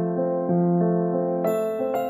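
Background music: a gentle keyboard melody of held notes, joined by bright bell-like notes about one and a half seconds in.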